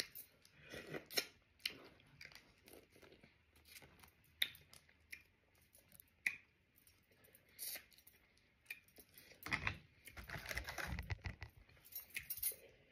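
Close-up eating sounds of someone eating steamed oysters: soft chewing with scattered sharp clicks and crackles of fork and shells. Near the end comes a louder stretch of rustling and handling.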